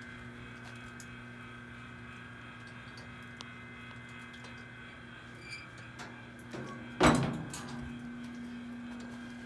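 Steady hum, then a few small clunks and, about seven seconds in, the heavy steel door of a wood-fired rotisserie smoker shutting with one loud clang that rings briefly.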